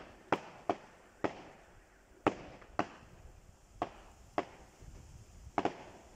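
Aerial fireworks bursting: about nine sharp bangs at irregular intervals, roughly one every half second to second, each trailing off briefly, with two close together near the end.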